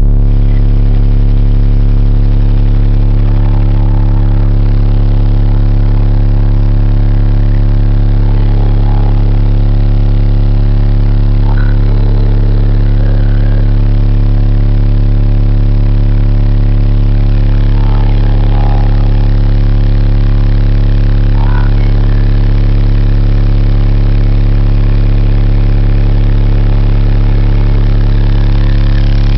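Four 18-inch AA Mayhem subwoofers, driven by Crunch GP3000D amplifiers, playing one very loud, steady deep bass note that holds unchanged, heard from inside the vehicle.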